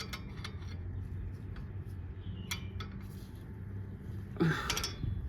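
Scattered metal clinks and ticks of a wrench working the locked double nuts on a damaged wheel hub stud as it is slowly turned loose, loudest a little before the end.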